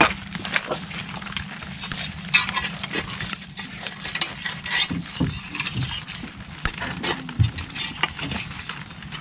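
Scattered knocks, scrapes and crackling of rocks and broken concrete slabs being broken up and worked loose by hand to reach a mud crab's hole, over a steady low hum.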